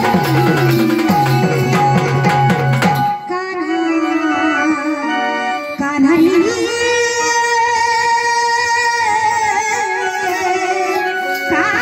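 A woman singing a Marathi gavlan folk song: over quick hand-drum strokes at first, then, once the drum stops about three seconds in, in long held, gently wavering notes.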